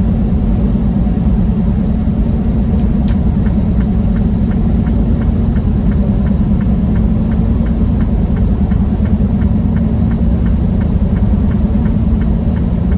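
Steady engine and road rumble heard inside a truck cab while driving. A light, regular ticking, about two to three ticks a second, runs through the middle of it.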